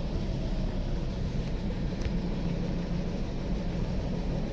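Toyota Corolla 1.8-litre four-cylinder engine idling roughly and misfiring heavily, with cylinder 4's fuel cut off by a scan tool during a cylinder balance test. The engine also has a dead number 2 cylinder, so it is running on only two cylinders.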